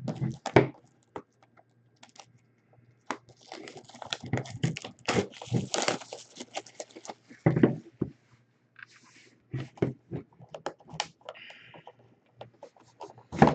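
Plastic shrink-wrap being torn and crinkled off a sealed box of trading cards, with scattered clicks and scrapes as the cardboard box is handled and opened.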